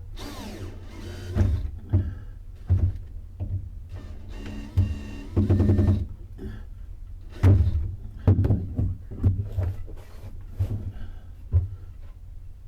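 Irregular knocks and thuds of hand-tool demolition inside a plywood boat hull, with a falling squeal near the start and a longer pitched scraping about five seconds in.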